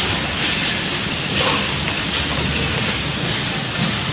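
Automatic taping machine running a wrapping cycle on a USB charger shell, under a steady hiss of workshop noise.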